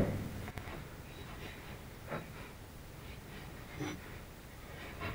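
Faint, scattered handling sounds, a few soft short clicks and rustles, as fingers work at the wiring and terminals of a mini freezer's refrigeration compressor.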